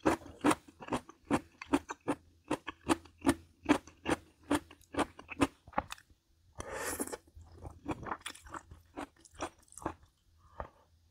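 Close-miked chewing of something crisp, with sharp crunches at about three a second. A little past halfway there is a pause with a brief rushing noise, then the crunching resumes.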